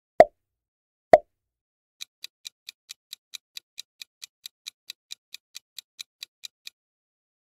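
Quiz-timer sound effects: two loud pops about a second apart, then a quick, even run of light ticks, about four to five a second, lasting nearly five seconds.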